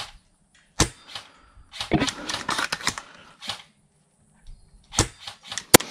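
Sharp cracks and clicks from a Laylax-upgraded VSR-10 spring-powered bolt-action airsoft sniper rifle being worked and fired: single cracks a little under a second in and about five seconds in, the sharpest just before the end. A denser patch of clicks and rustle comes about two to three seconds in.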